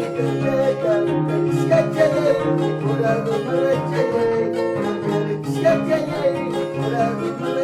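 Andean harp playing a quick melody of plucked notes over a repeating low bass line.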